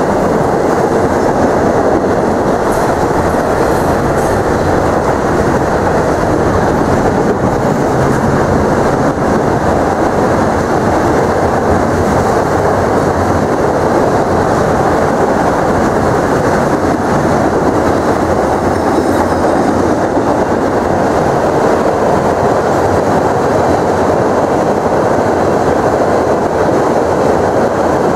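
Steel wheels of a long freight train's cars rolling steadily over a low railway bridge: a continuous, even noise with no let-up as double-stack container cars, autorack cars and tank cars pass.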